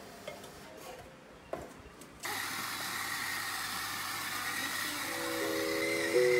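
An electric coffee grinder starts abruptly about two seconds in and runs steadily, a dense grinding noise with a high whine in it. Background music with plucked notes comes in near the end.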